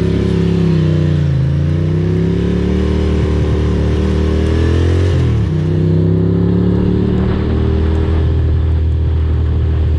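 Ducati Monster's L-twin engine from the rider's seat, dipping briefly, then pulling steadily up in pitch until a sharp drop about five seconds in, the sign of an upshift, then running fairly steady. A hiss of tyres on wet road and wind sits underneath.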